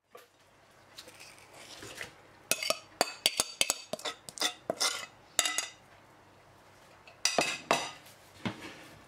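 Clinks, knocks and scrapes of a utensil and a plastic tub against the stainless steel mixing bowl of a Thermomix as partly frozen ice cream mixture is scraped into it. There is a dense run of sharp knocks from about two and a half to five and a half seconds in, and a few more near the end.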